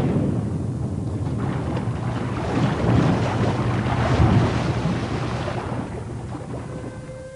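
Water splashing and churning, with heavier splashes in the middle that fade off near the end.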